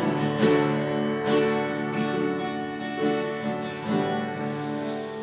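Acoustic guitar strummed slowly, one chord strum about every second, each chord left ringing.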